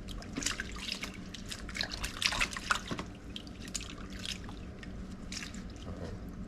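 Raw, wet fish being salted and worked by hand: a run of small wet clicks and pats, busiest in the first three seconds and thinning out after.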